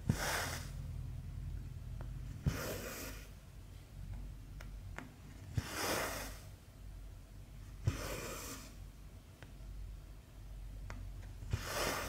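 Cross-stitch needle and cotton thread going through 11-count cloth, five stitches about every two and a half seconds. Each is a small click as the needle passes the fabric, then a short swish as the thread is drawn through. A low steady hum runs underneath.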